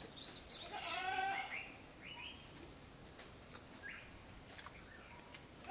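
An animal bleat, a pitched call with a slightly wavering tone lasting about a second and a half near the start, followed by a few faint short chirps.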